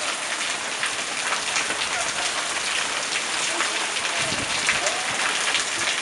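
Heavy typhoon rain pouring down onto a yard and its puddles: a dense, steady hiss full of small individual splashes. A brief low rumble comes about four seconds in.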